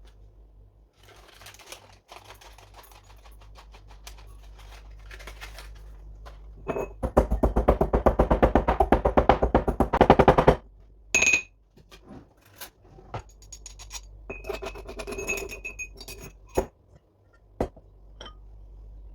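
A kitchen utensil working in a mixing bowl: soft scraping, then a burst of rapid clinking whisking strokes, about ten a second for around three seconds. Several separate ringing taps against the bowl follow.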